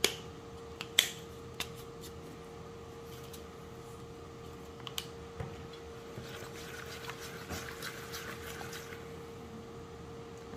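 A few sharp knocks in the first second and a half as a spice jar is set down on a wooden worktop, then from about six seconds in a soft, scratchy swishing of a silicone basting brush stirring an oil and spice mixture in a bowl. A faint steady hum lies underneath.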